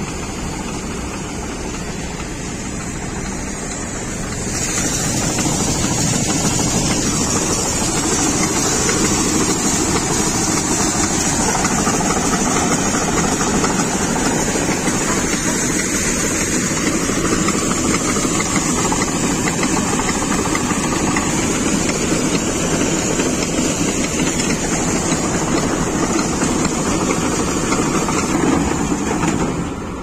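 Farm machinery at work in the wheat harvest: the diesel engines of a tractor-mounted combine harvester and tractor running steadily under load, with grain unloading from the combine's auger. The noise steps up louder about four and a half seconds in and then holds steady.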